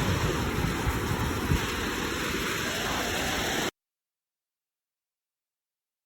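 Sea surf washing with wind buffeting the microphone, a steady rushing noise with low gusty rumbles, that cuts off abruptly a little past halfway into dead silence.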